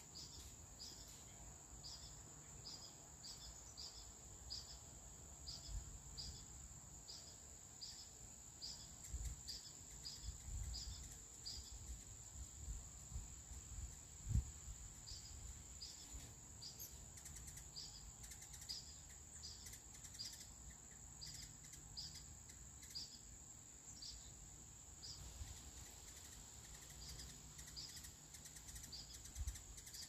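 Faint outdoor ambience: a steady high-pitched insect drone, with a short high chirp repeating about twice a second that breaks off about halfway and again later. Low wind rumble underneath, and a single low bump about halfway through.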